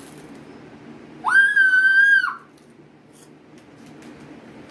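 A single high-pitched squeal, about a second long, that swoops up and then holds steady. It is a reaction to the burn of the Carolina Reaper cheese curls just eaten.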